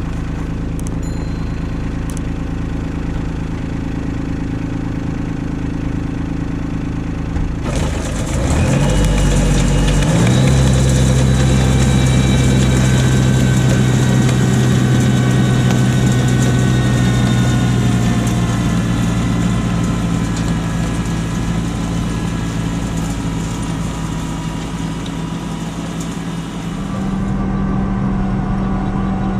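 Kubota LX2610 compact tractor's diesel engine running steadily. About eight seconds in it turns louder and fuller with a pitch that climbs for a couple of seconds as it revs up, holds steady for a while, then eases down.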